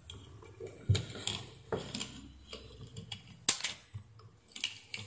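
Irregular sharp clicks and small knocks of a metal hand tool's tips handling a cracked, burnt-out metal oxide varistor on a hard bench. There are about half a dozen, and the loudest click comes about three and a half seconds in.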